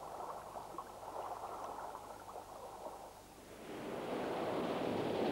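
Muffled ocean noise with faint crackling, then about three and a half seconds in, a louder and brighter steady wash of surf on a beach.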